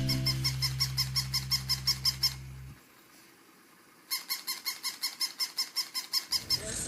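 Rapid, evenly spaced high squeaks, about seven a second, in two runs of about two seconds each with a short pause between.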